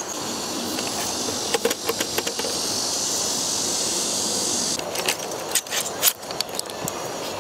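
Metal clicks and clinks of a tripod and its pan head being handled and set up: a few around two seconds in and a cluster from about five seconds on. Underneath runs a steady high insect buzz that fades about five seconds in.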